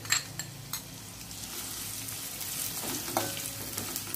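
Chopped onion hitting hot oil in an aluminium pot and sizzling as it fries, with a few clicks as the pieces drop in during the first second. About three seconds in, a metal spoon knocks against the pot with a short ring as the onion is stirred.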